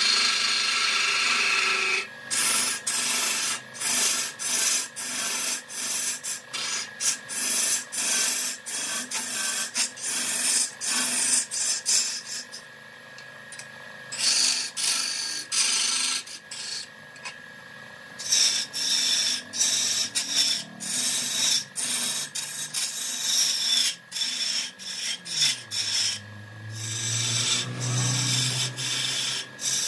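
Woodturning on a lathe: a turning tool scraping against the spinning wood in many short passes with brief gaps between them. About 26 seconds in, a low hum comes in and holds.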